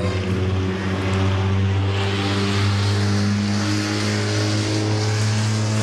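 A motor running steadily with a low drone, its pitch rising a little about two seconds in.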